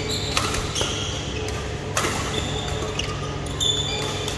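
Badminton rally: sharp racquet hits on the shuttlecock, the loudest just after the start and about two seconds in, with short sneaker squeaks on the court floor.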